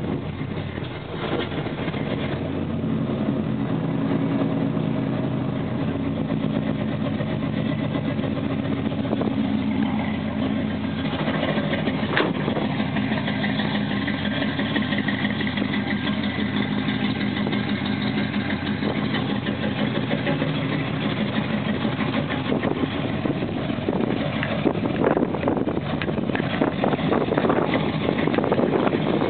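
1970 Dodge D100's 318 V8 idling steadily through long-tube headers and a Magnaflow exhaust, warming up after a cold start.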